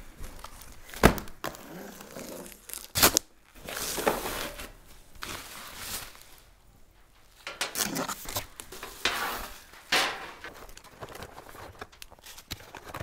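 Cardboard boxes and packaging being handled on a concrete floor: rustling, sliding and scraping, with several sharp knocks, the loudest about a second in and at three seconds.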